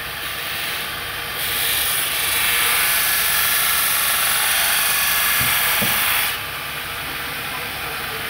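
Belt grinder with a new abrasive belt grinding a steel blade, a steady loud grinding hiss over the running motor. The hiss eases for the first second or so, comes back strong, then drops about six seconds in as the blade lifts off, leaving the belt running free.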